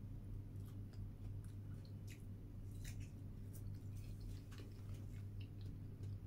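Close mouth sounds of a person chewing food: small wet clicks and smacks at irregular intervals, over a steady low hum.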